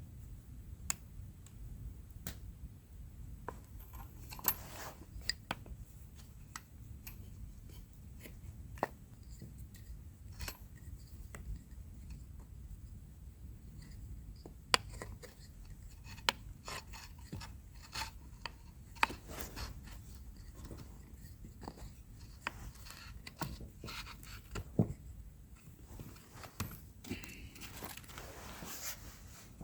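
Irregular hand-handling sounds: scattered sharp clicks and knocks with stretches of scraping and rubbing, over a steady low rumble.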